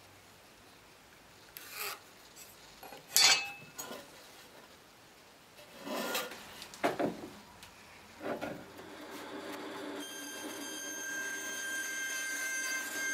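Pencil scraping along a metal speed square and a pine board rubbed and shifted on a wooden workbench: a few short scrapes and knocks, the loudest a little after three seconds. From about ten seconds a steady hum with several held tones builds up.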